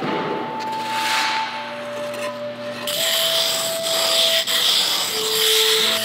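Slow background music of long held notes, over a dry rubbing and scraping hiss that grows stronger about halfway through, as the sand core of a bell mould is smoothed by hand.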